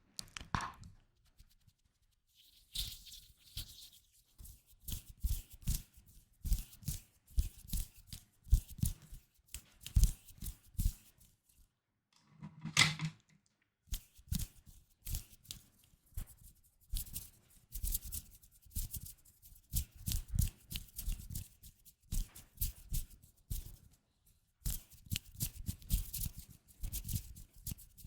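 Close-miked ASMR tapping: quick, irregular runs of light taps and clicks on objects, with short pauses between runs.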